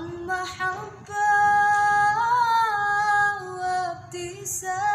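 A solo female voice singing an Arabic nasheed, holding a long wavering note on the word 'mahabba' (love) for about three seconds before moving on to the next phrase.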